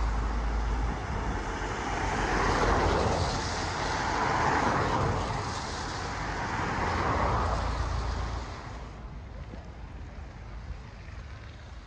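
Cars passing one after another on a wet road, tyres hissing on the wet tarmac, three passes swelling and fading in turn; after about nine seconds the traffic noise drops away to a quieter background.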